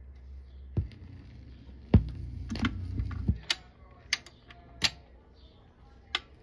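KLH Model 24 turntable's tonearm being lifted and handled, knocking through the speakers with a heavy thump about two seconds in, followed by several sharp clicks and clunks of the arm and changer mechanism as the arm returns to its rest.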